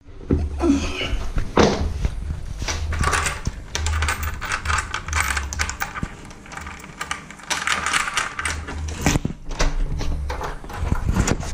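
A front door being unlocked from inside: repeated clicks and rattles of its brass security fittings and lock, mixed with close rubbing and knocking from a handheld camera.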